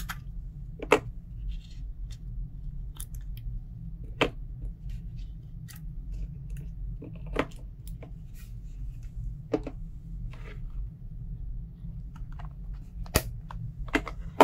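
Rechargeable batteries and a clear plastic battery case being handled, with a plastic battery charger picked up: scattered sharp plastic clicks and taps a second or few apart, over a steady low hum.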